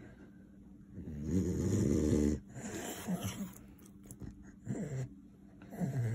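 French bulldog making throaty breathing and vocal sounds: a longer, louder one about a second in, then several short, softer ones, in a dog going through what its owner calls seizure activity.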